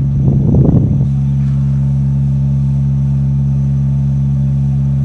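Steady low machine hum made of a few even tones. Rough rumbling noise lies over it and cuts off abruptly about a second in, leaving the hum alone.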